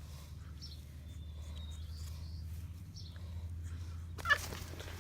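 Electric hair clippers buzzing steadily, with faint high squeaks and a sharp click about four seconds in.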